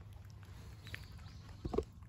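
Cats eating from bowls: short, sharp crunches of dry kibble being chewed, with the loudest cluster of crunches near the end.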